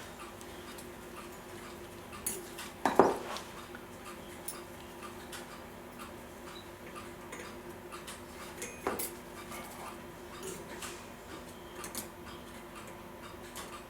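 Light metallic clinks and taps of small clock parts and tools being handled and fitted during reassembly of a clock's gear train, a few scattered strikes with the loudest about three seconds in and another near nine seconds, over a faint steady hum.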